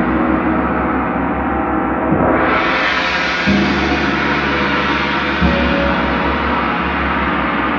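Large Paiste gongs struck softly with a felt mallet, a deep sustained ringing wash with a slow throbbing low end. About two seconds in the shimmer swells and brightens, and further soft strokes land about halfway and about two-thirds of the way through.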